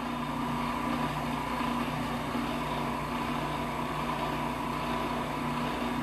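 Food processor motor running steadily, grinding sunflower seeds into sunflower seed butter.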